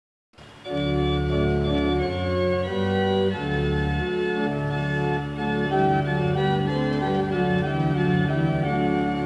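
Church organ playing a hymn introduction in slow, sustained chords over a deep, moving bass line, starting suddenly about half a second in.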